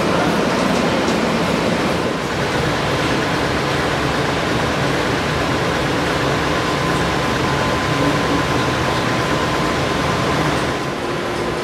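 Steady rushing hum of the passenger rail car's ventilation and onboard machinery, with a thin steady whine running through it.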